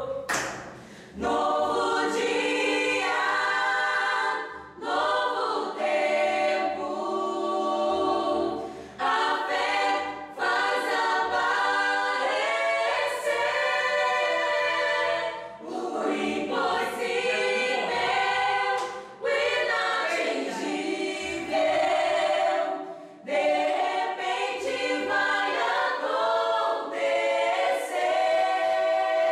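A small group of men and women singing a gospel song together in sung phrases, with short breaks between the phrases.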